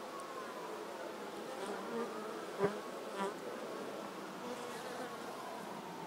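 Honeybees of a wild colony buzzing at the entrance to their nest in a hollow tree trunk: a steady hum, with single bees passing close and their pitch rising and falling. One short, sharp tap about two and a half seconds in.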